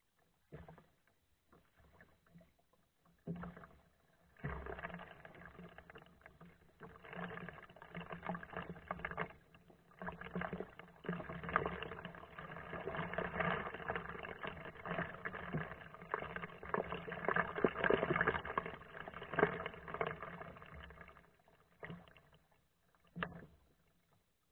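Kayak paddle strokes splashing and dripping in the water. The sound picks up about four seconds in and dies away near the end, followed by a single sharp click.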